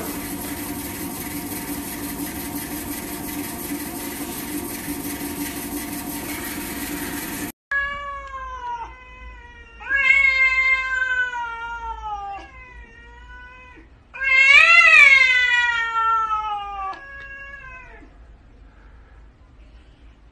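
A steady hum and hiss, cut off abruptly, then a cat yowling at another cat. It gives a series of long, drawn-out caterwauls, each sliding down in pitch, the loudest about two-thirds of the way through.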